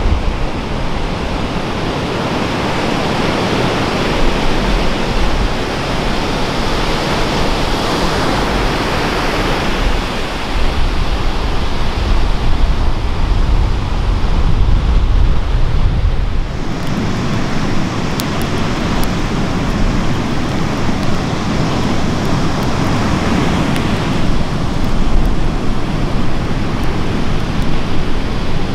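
Surf washing on the beach, with wind buffeting the microphone as a low rumble; the sound shifts about halfway through, the rumble dropping away.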